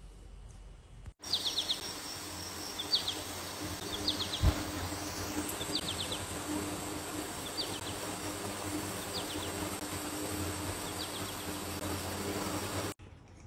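After a quiet first second, a steady outdoor background hiss comes in. Over it a high chirping call, a quick group of three or four notes, repeats about every second and a half, with a single low thump about four and a half seconds in.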